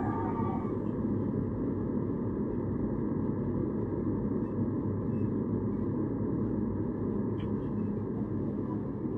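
Steady hiss and low hum from a home security camera's microphone in a quiet room, with one faint tap about seven and a half seconds in.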